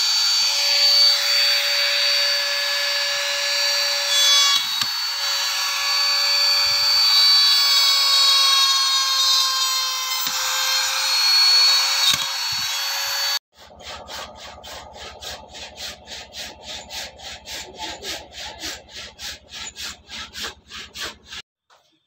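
Handheld electric trim router running at speed and cutting into a wooden block: a steady high whine over the rasp of the bit in the wood. It cuts off abruptly about 13 seconds in and gives way to a quieter, even series of strokes, about four a second, that stops shortly before the end.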